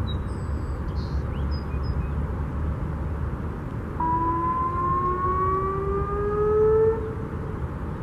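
Alertus HPSA-1200 electronic siren sounding a single whoop at the turned-down volume used for its tests: about four seconds in, a steady tone starts and rises slowly in pitch for about three seconds, then cuts off sharply. A steady low rumble runs underneath.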